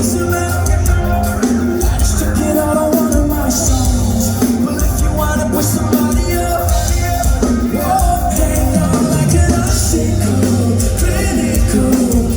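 Live rock band playing loudly, with singing.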